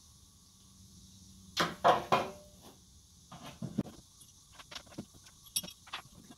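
Metal parts clanking and clinking against the steel deck of a Snapper 360z mower as a replacement spindle assembly is handled and fitted with bolts. There are two loud clanks with a brief metallic ring about a second and a half in, then a scatter of lighter taps and clicks.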